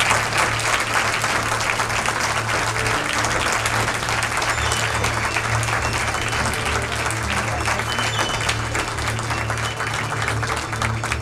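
Audience applauding, a dense steady clapping, with music playing underneath.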